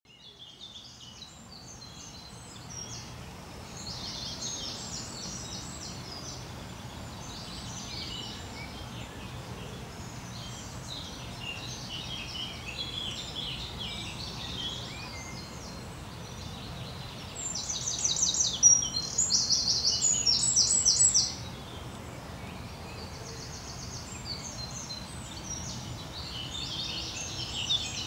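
Songbirds singing outdoors, many short chirping phrases one after another, fading in at the start. A louder, fast song from one nearby bird stands out for a few seconds past the middle.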